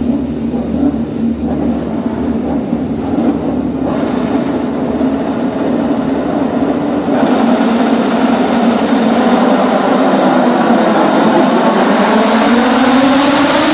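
A grid of Moto2 racing motorcycles with Triumph 765 cc three-cylinder engines, revving together and then pulling away from the race start. The sound grows louder and fuller about seven seconds in as the pack accelerates past, with engine notes rising in pitch near the end.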